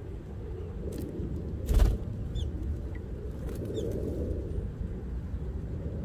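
A steady low outdoor rumble with a short, loud whoosh a little under two seconds in. A few faint, brief, high chirps from small birds come between about two and four seconds in.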